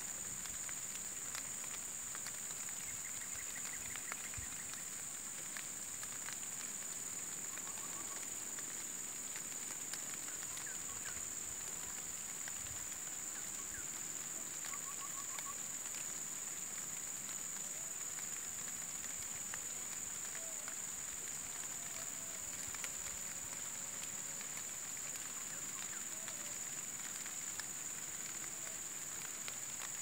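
Steady outdoor ambience dominated by a continuous high-pitched drone typical of insects, with scattered faint crackles and a few brief soft bird chirps.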